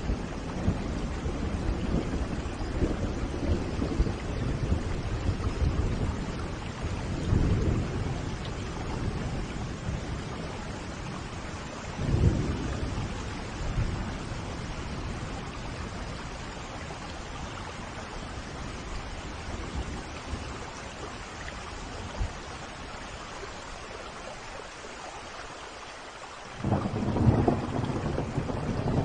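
Thunderstorm: steady rain with low rolls of thunder swelling up at intervals. Shortly before the end the sound thins out, then comes back suddenly louder.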